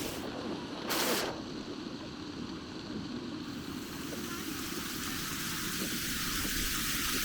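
Steady low rush of flowing river water, with a brief louder rush about a second in.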